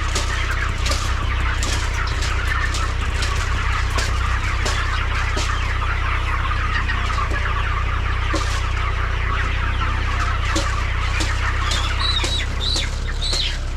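A flock of chickens clucking continuously, many birds calling over one another, with a steady low hum beneath.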